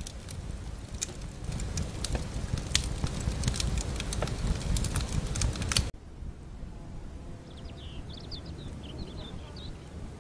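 A fire burning, with a low rumble and many sharp crackles and pops, stops abruptly about six seconds in. A quieter outdoor ambience follows, in which a bird gives a short run of chirps.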